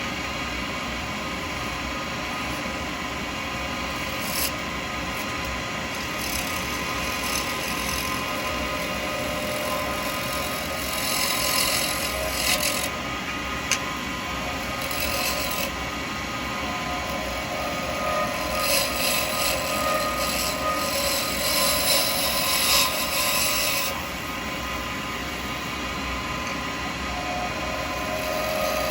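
Lathe running steadily while a 12 mm round carbide cutter shaves an acrylic pen blank, the hissing scrape of the cut coming in several passes, the longest a little past the middle. The hiss is the sound of a good, clean cut.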